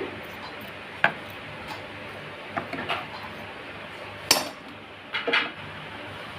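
A spoon knocking and scraping against a plastic container as a layer of fried vermicelli is pressed down. It comes as a handful of separate clinks, the loudest about four seconds in and two close together about five seconds in.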